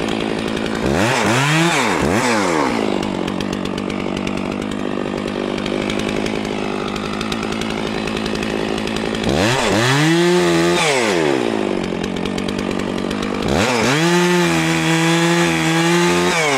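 Stihl MS660 two-stroke chainsaw idling, blipped twice about a second in, then run up to full throttle twice for cuts. The second run, near the end, lasts about three seconds with the pitch holding and dipping slightly as the chain bites into a fallen log.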